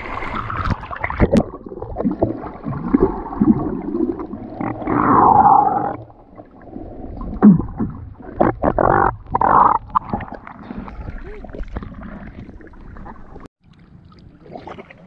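Irregular, muffled splashing and bubbling of shallow seawater, partly heard underwater. It is densest for the first few seconds, then comes in separate bursts and grows quieter toward the end.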